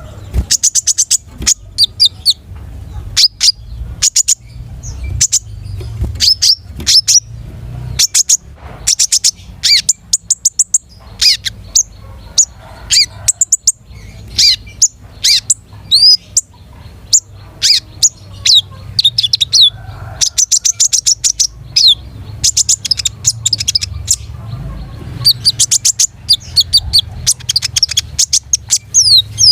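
Konin songbird singing in full voice: rapid, high-pitched chirping trills repeated in bursts a second or two long, almost without a break, over a faint low hum.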